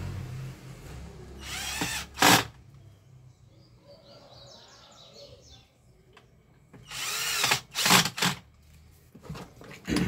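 Cordless drill-driver driving screws into a plastic fan motor cover: two short runs with a motor whine that bends in pitch, about two seconds in and about seven seconds in, each ending with a brief louder peak, and a few short bursts near the end.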